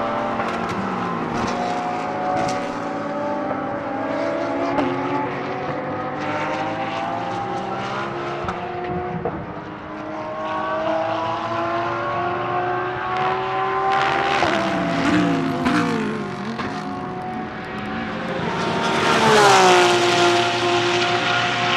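Porsche 992 GT3 R race car's naturally aspirated 4.2-litre flat-six accelerating through the gears, its pitch climbing and resetting at each upshift, with occasional sharp cracks. The revs drop through several downshifts about two-thirds of the way in, and near the end a car passes at full throttle, louder, its pitch falling as it goes by.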